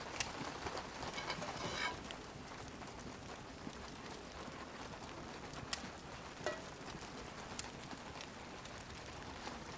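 Wood fire crackling steadily in an open clay hearth under a griddle, with a few sharp pops now and then.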